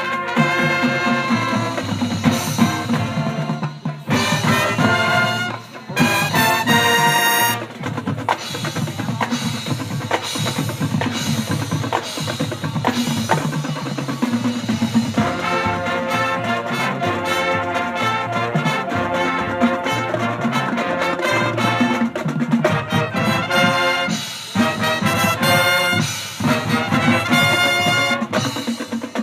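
High school marching band playing its field show: brass section with trumpets and trombones over a drumline, with short brass stabs and brief breaks in the sound.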